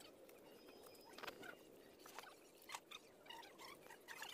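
Faint crackling of marinated pig head pieces grilling on a wire rack over charcoal: a low sizzle with scattered, irregular sharp pops as the fat spits.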